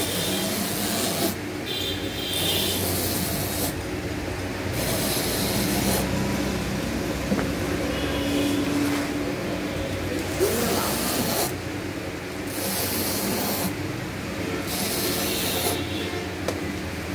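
A hand knife slicing through an old tire's rubber in repeated rasping strokes, about one every one to two seconds with short pauses between, as a strip is cut away from the casing.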